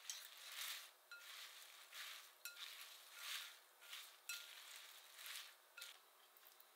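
Wooden cooking chopsticks tossing dressed salad leaves in a glass bowl: soft rustling of the wet leaves, broken about once a second by a light click of the chopsticks against the glass with a short ring.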